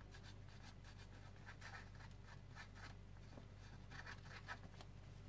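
Faint scratching of a glue tube's nozzle drawn over cardstock in a series of light strokes as glue is spread along the paper.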